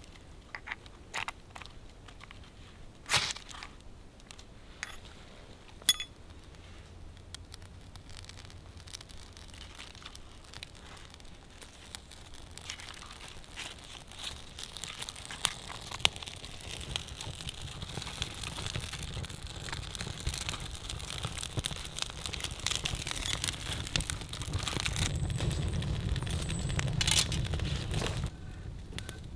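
A knife scraping and clicking against wood in a few sharp strokes, then a campfire of birch bark and kindling catching and crackling, building steadily louder through the second half before cutting off suddenly near the end.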